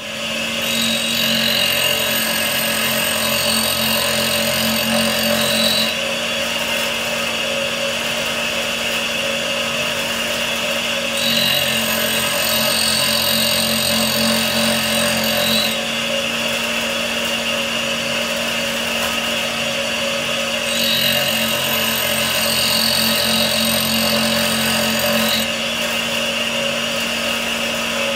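Homemade tool grinder with a diamond cup wheel switching on and running, grinding the end face of a multi-flute cutter. Three stretches of a few seconds each, about five seconds apart, bring a harsher, hissier grinding sound as the cutter's edges pass across the wheel.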